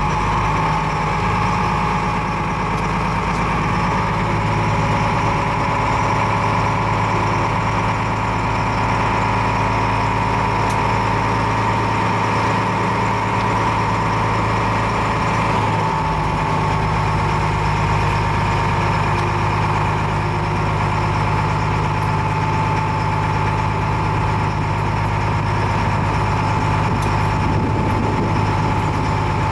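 Small passenger-and-car ferry's engine running steadily under way, a continuous low hum with a higher whine, heard from the open deck; its tone shifts briefly about halfway through.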